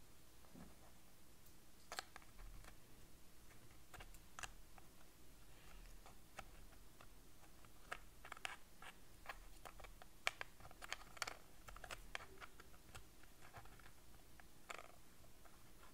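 Faint, scattered clicks and taps of the wooden pieces of an iDventure Trial of Camelot puzzle box being pushed and slid by fingers. They come in a quicker run around the middle of the stretch.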